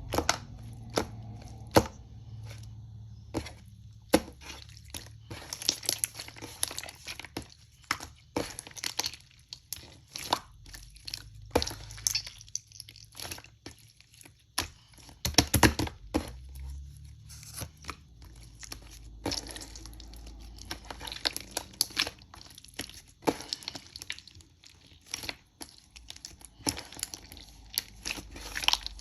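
Slime being squished, stretched and poked by hand, making irregular crackles, pops and sticky clicks.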